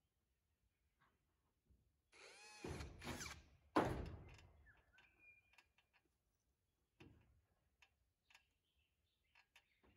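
Hand and tool work on a corrugated-iron roof: a short whirr that glides in pitch about two seconds in, then a loud metallic thunk that rings away, followed by scattered light knocks and clicks.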